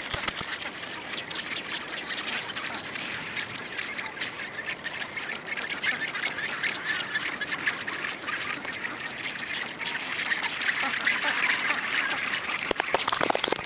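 Rockhopper penguin colony calling: a dense, continuous chorus of many harsh, overlapping brays, with scattered sharp clicks and knocks close to the microphone that grow more frequent near the end.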